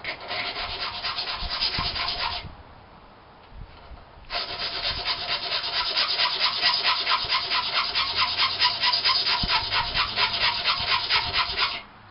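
Hand file rasping back and forth across the blade of a stainless steel butter knife clamped in a vise, in quick, even strokes, shaping its point down to a marked line. It files for about two seconds, pauses, then starts again about four seconds in and runs on steadily until just before the end.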